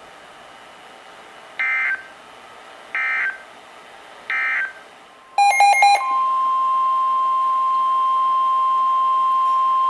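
Emergency Alert System tones. First come three short bursts of SAME digital data, the end-of-message code closing the previous bulletin. About five seconds in there is a brief jumble of mixed beeping tones, then the steady 1050 Hz weather-radio warning alarm tone, which announces the tornado warning that follows.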